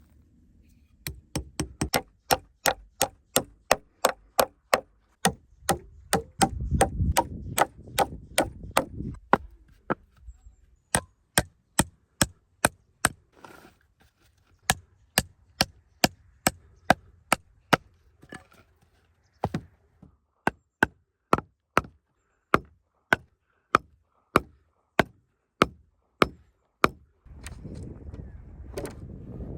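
A hand tool striking wood over and over, about two to three sharp blows a second, in runs broken by short pauses. Near the end the blows stop and a low rasping noise begins.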